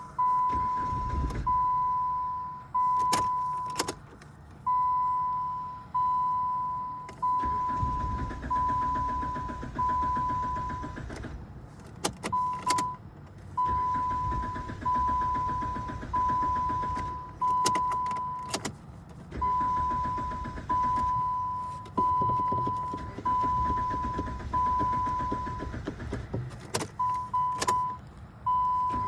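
A Dodge's dashboard warning chime repeating steadily, one fading tone about every second and a bit, with sharp clicks here and there. The car is in a no-crank, no-start condition.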